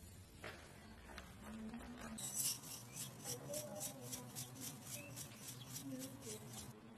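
Dried parsley and oregano being shaken and sprinkled onto cheese-topped toast: a light, quick, even patter of several taps a second, starting about two seconds in and stopping just before the end.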